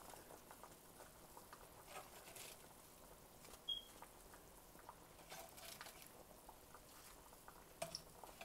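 Near silence: faint soft pattering and light clicks as napa cabbage leaves are laid into a pot of simmering soup, with a brief high squeak a little under four seconds in.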